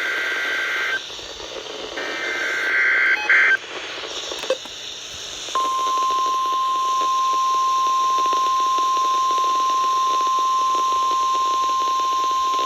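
NOAA Weather Radio test signal over a radio receiver with steady hiss: short bursts of warbling two-pitch data tones (the SAME header) in the first few seconds, a click, then from about five and a half seconds the steady single-pitch 1050 Hz warning alarm tone. It is the weekly test of the alert system.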